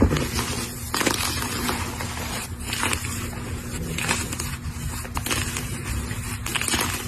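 A colourful block of gym chalk being crushed, giving off dense dry crunching and crumbling with repeated sharper cracks.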